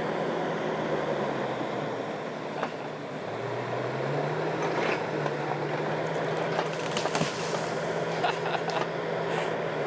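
Excavator engine working hard as it pushes over a hackberry tree, its revs climbing about three and a half seconds in. In the second half come several sharp cracks and snaps of wood as the tree gives way.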